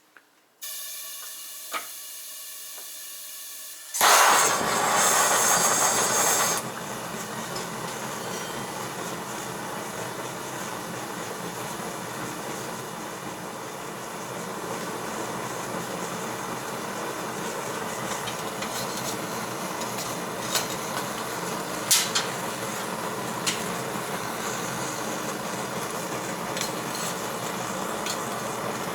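Blacksmith's forge being started: a blower motor begins to hum, then about four seconds in the burner lights with a loud hissing whoosh and settles into a steady rushing burn, with a few sharp clicks later on.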